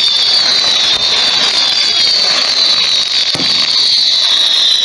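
Fireworks: several high-pitched whistles sounding together and sliding slowly down in pitch over dense crackling, with a dull thump about three and a half seconds in.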